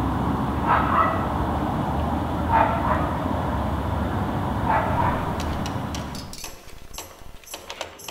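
A dog barks three times, about two seconds apart, over a steady low outdoor rumble. Near the end the rumble fades and a run of sharp clicks and taps takes over.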